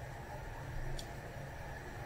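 A single faint click about a second in from the handlebar light switch of a wheelchair electric drive unit being pressed, over a steady low hum.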